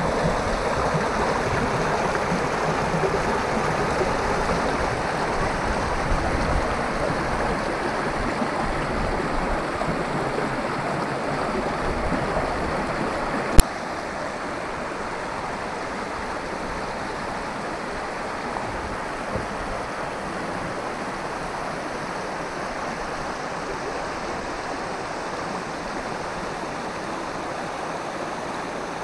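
Boone Fork, a rocky mountain creek, rushing steadily over stones in small riffles. About halfway through there is a single sharp click, after which the rushing goes on more quietly.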